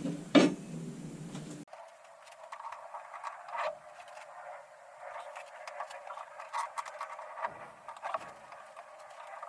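A sharp knock about half a second in, then scattered light clicks and taps.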